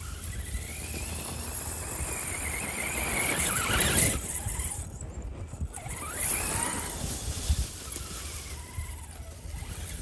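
Electric motor and gears of an RC crawler whining, the pitch gliding up and down as the throttle is worked. A louder rustling rush peaks about four seconds in.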